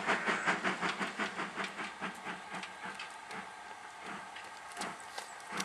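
Steam locomotive working under steam, its exhaust beating in quick, even chuffs that fade toward the middle and pick up again near the end.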